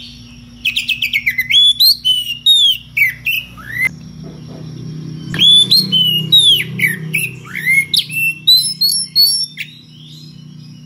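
Oriental magpie-robin (kacer) singing full-voiced, its challenge song to a rival: varied sweeping whistles rising and falling, mixed with rapid sharp notes. It comes in two loud bursts with a short pause about four seconds in. A steady low hum runs underneath.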